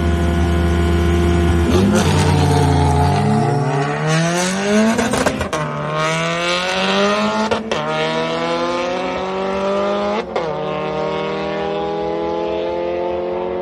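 Two cars launching in a standing-start drag race: engines held at steady high revs on the line, then accelerating hard about two seconds in. The engine pitch climbs and drops back with three upshifts.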